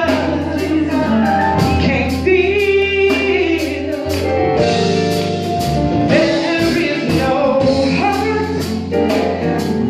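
Women's gospel vocal group singing, a lead singer on microphone with backing voices in harmony, over keyboard accompaniment with a steady low bass and a regular beat.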